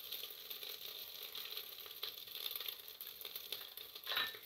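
Tempering spices (bay leaves, whole fennel and ginger paste) sizzling gently in hot mustard oil in the bottom of a pressure cooker, a soft, steady crackle of small pops. A brief louder sound comes near the end.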